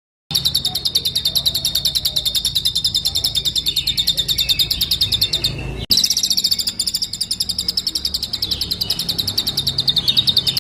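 Songbird's rapid trill ('roll tembak'): a fast, even run of high-pitched notes at about ten a second. It breaks off abruptly about six seconds in and starts again at once.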